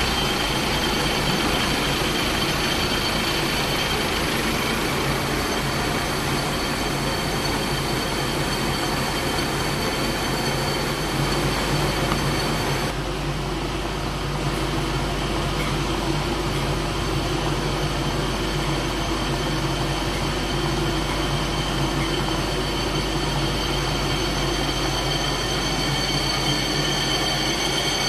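PF A 2900 jumbo roll paper slitting rewinder running steadily, with a hum and several high steady whine tones over a hiss of machine noise. The hiss softens about halfway through.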